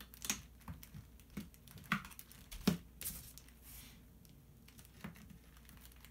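Irregular clicks and knocks of a screwdriver and cutters working at the plastic housing of a Samsung printer toner cartridge, the sharpest knock a little under three seconds in. The plastic sheet under it rustles briefly in the middle.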